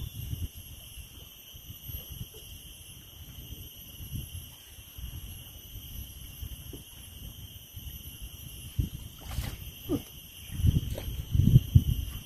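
A steady high-pitched insect drone over a low rumble of wind on the microphone, which gusts louder about ten seconds in, with one sharp knock shortly before.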